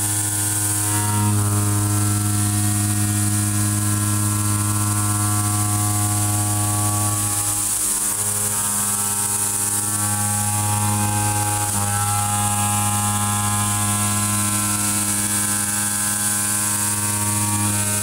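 Kennametal Mill 4-12 KT tangential shoulder mill roughing 4140 steel on a DMG MORI DMU-50: a steady, pitched cutting hum with many overtones. It dips briefly twice, a little before halfway and about two-thirds through.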